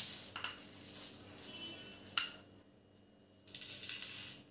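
Stainless steel spoon and bowl clinking against steel plates as dry namkeen mixture is served out, with a sharp clink about two seconds in and a rustling scrape of the mixture near the end.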